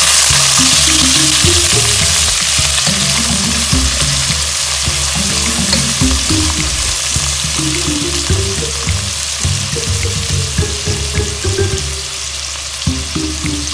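Onions, ginger and tomato sizzling in hot oil in a wok, stirred with a wooden spatula; the sizzle eases a little after the first few seconds. Background music with a low melody plays underneath.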